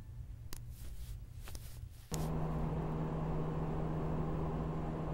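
A steady low machine hum with one constant low tone starts abruptly about two seconds in. Before it there is only a quiet low rumble with a few faint clicks.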